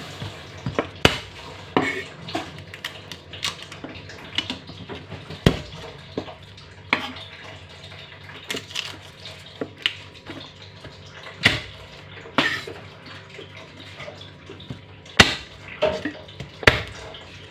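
Large kitchen knife knocking and tapping on a thick round wooden chopping block at irregular intervals as garlic cloves are crushed, peeled and cut, with a few louder sharp knocks.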